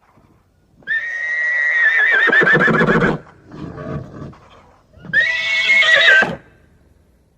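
Horse whinnying twice: a long, high call about a second in that breaks into a quavering warble, then a shorter one about five seconds in.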